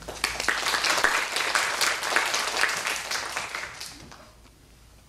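Audience applauding: dense clapping from many hands that starts right away and fades out about four seconds in.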